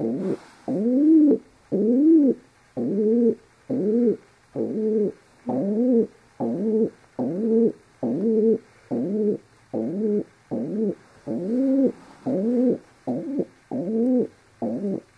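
Pet rock pigeon cooing in a long, even series of short notes, about one and a half a second, each rising and then falling in pitch.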